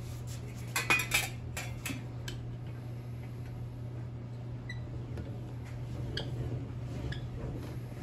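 Thin steel sheet clattering against the steel rollers of a bench slip roll as it is fed in, with a burst of sharp metallic clinks about a second in and fainter ticks later as the sheet is cranked through and rolled into a curve for a muffler shell. A steady low hum runs underneath.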